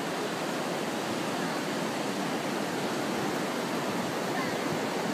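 A steady rushing noise with no rhythm, of the kind that running water or wind makes, with faint brief voice sounds in it.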